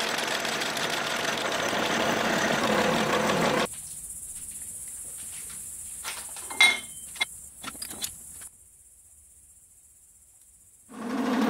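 Face mill taking a facing cut across a steel plate on a milling machine, a steady, noisy cutting sound that cuts off abruptly about a third of the way in. A quieter stretch follows with a few sharp clicks and knocks, then near silence, and the milling starts again just before the end.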